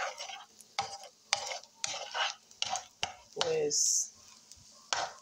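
Wooden spatula stirring and scraping scrambled eggs around a pan, in quick strokes about twice a second, with light sizzling from the hot oil.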